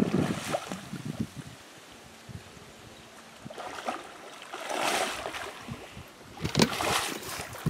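Hooked blue catfish splashing and thrashing at the surface of the water in several bursts: one at the start, another about five seconds in, and more near the end.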